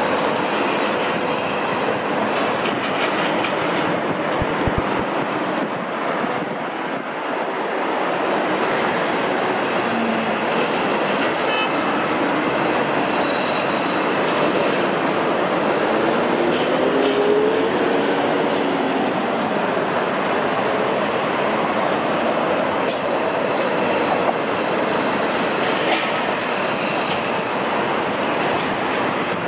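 Steady din of heavy machinery and traffic at a building site, with metallic squeals now and then.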